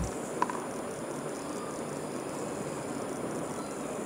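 Steady background noise, with a short sharp click about half a second in.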